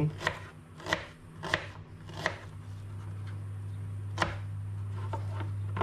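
Kitchen knife chopping a red onion into coarse chunks on a plastic cutting board: a series of separate, unevenly spaced taps of the blade striking the board, the loudest about four seconds in. A steady low hum runs underneath.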